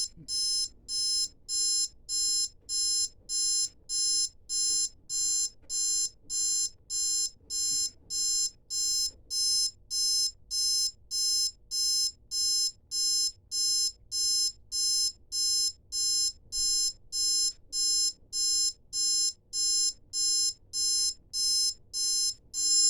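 Digital alarm clock going off at its set alarm time, sounding a steady train of identical high-pitched beeps, about two a second, without changing in pace or loudness.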